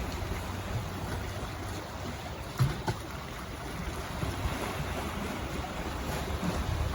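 Waves and water washing along a rocky shore, with wind rumbling on the microphone and two sharp knocks a little over two and a half seconds in.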